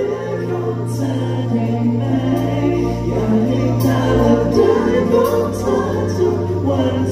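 A pop song with singing voices over a held bass line and regular cymbal-like strokes; the bass note changes about halfway through.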